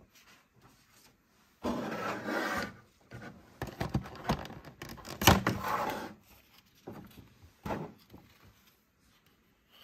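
Hands handling thin plastic blister trays: a scraping rasp of plastic on plastic lasting about a second, then crackling and rubbing with a sharp click a little past halfway, and two short scrapes near the end.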